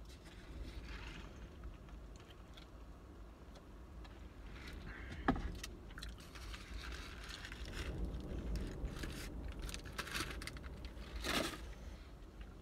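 Brisket sandwich being eaten: its foil wrapper crinkles in the hand amid close chewing, with a run of crackles thickening in the second half and a loudest crinkle near the end, over a low steady rumble.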